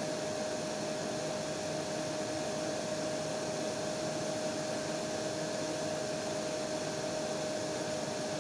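Hair dryer running steadily: an even blowing hiss with a constant whine.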